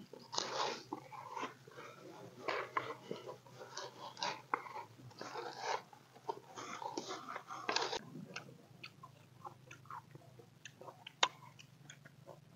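A hand in a plastic-bag glove tossing peeled, scored fruit in a plastic bowl: plastic crinkling with wet squelches and knocks of fruit, busiest for the first eight seconds, then sparser clicks.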